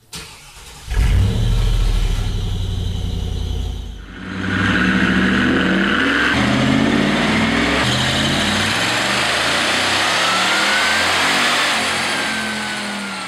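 ProCharger-supercharged LT1 5.7-litre V8 of a 1996 Pontiac Firebird making a wide-open-throttle pull on a chassis dyno. A deep rumble comes first and dips briefly about four seconds in. Then the engine note climbs in steps as it works up to about 6,600 rpm, with a thin whine rising in pitch near the end.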